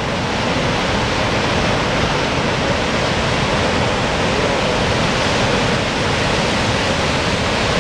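The American Falls at Niagara Falls, heard close up from the brink: a loud, steady rush of falling water with no let-up.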